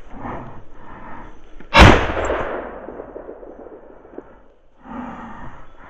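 A single shotgun shot fired at a flushing woodcock, about two seconds in, its report dying away over roughly two seconds; the shot misses.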